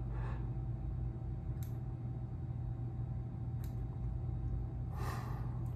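Small fly-tying scissors snipping synthetic EP fibres on a fly, a few faint, separate snips a couple of seconds apart over a steady low hum.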